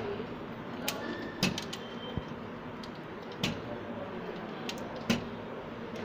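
Short, sharp plastic clicks and taps, several at irregular intervals with the loudest near the end, as wiring-harness connectors on a Ricoh MP 2001-series copier's main board are handled and unplugged, over a steady background hiss.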